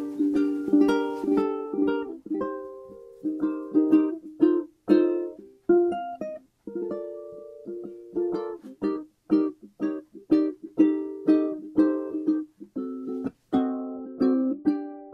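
Background music: a plucked ukulele-like instrument playing a light melody of short notes.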